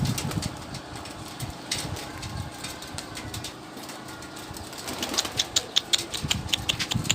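Domestic pigeons cooing with low pulsing coos, then a quick run of sharp clicks and taps near the end, like wings flapping or feet on the roof.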